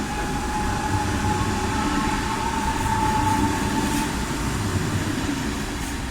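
ICE high-speed train moving in the station: low rumble with an electric whine that rises slightly in pitch and fades about four and a half seconds in.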